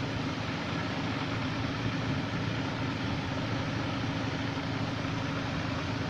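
Steady background hum and hiss, with a constant low tone underneath, unchanging throughout.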